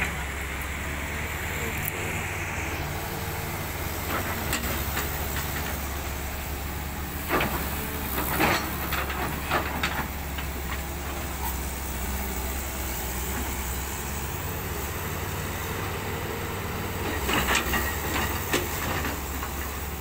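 Diesel engine of a CAT tracked hydraulic excavator running steadily while the bucket works crushed-stone gravel. Gravel crunches and scrapes under the bucket twice about a third of the way in, and again several times near the end.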